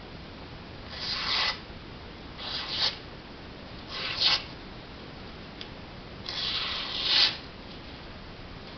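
Knife blade stroked across a sharpening whetstone: four scraping strokes, the last one longest, each getting louder toward its end.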